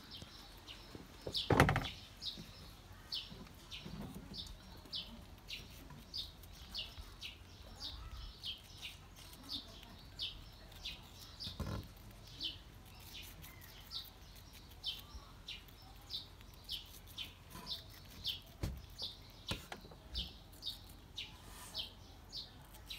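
A small bird calling over and over, short high chirps about twice a second, with one loud thump about a second and a half in.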